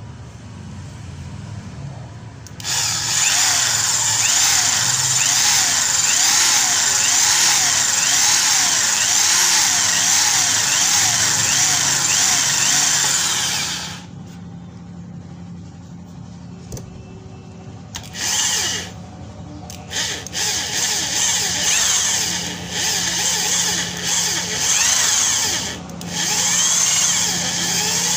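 Budget corded hammer drill with a masonry bit boring into a wooden board. The motor runs loud and steady for about eleven seconds, then drops to a low hum. Near the end it speeds up in a string of short bursts as the trigger is squeezed on and off.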